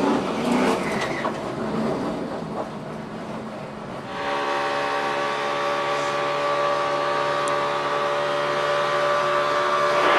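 NASCAR Sprint Cup stock car's V8 engine run at full throttle, holding one steady high pitch from about four seconds in. Before that comes a rougher, noisier mix of race car sound.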